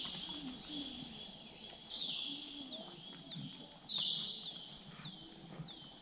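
Birds calling in the morning forest: repeated high whistled notes that each slide down in pitch, several overlapping about every half second, with fainter lower calls beneath.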